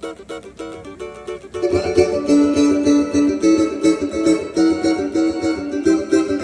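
Giannini cavaquinho, amplified through a dual LK pickup, playing quick picked samba/pagode phrases. About a second and a half in it grows louder and fuller, with a strong low end.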